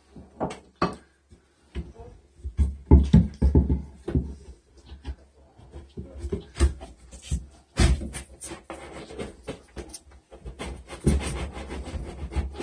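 Irregular knocks, bumps and scrapes of a wooden 2x4 board being worked into a hole cut in drywall, with rustling handling noise between them.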